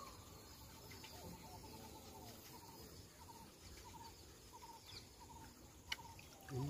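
Faint natural ambience: a small animal's short chirping call, repeated about two or three times a second, with a single click near the end.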